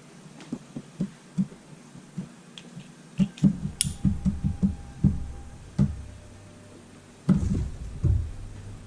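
A series of knocks and clunks from handling parts and tools: scattered single taps, then a quick run of knocks a few seconds in, and two heavier thumps near the end.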